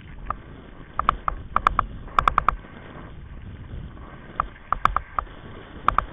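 Kite buggy rolling fast over hard beach sand: a steady low rumble of wind and wheels, broken by bursts of sharp clicking rattles. The rattles bunch about one to two and a half seconds in and come again at about four and a half seconds and near the end.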